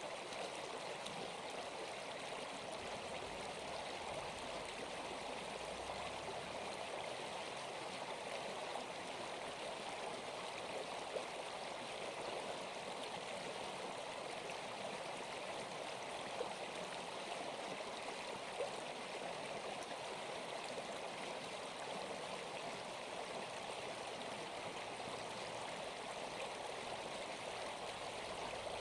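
Steady rushing of flowing water, like a stream, even and unbroken, with a few faint clicks near the middle.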